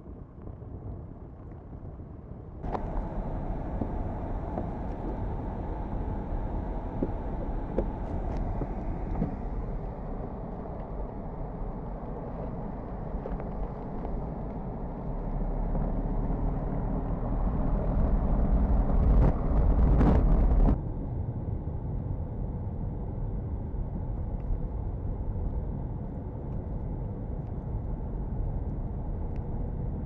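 Steady rumble of a car driving on snow-covered roads, heard from inside the car, swelling louder for a while and then dropping off abruptly. At the start there is a few seconds of softer wind-blown outdoor noise.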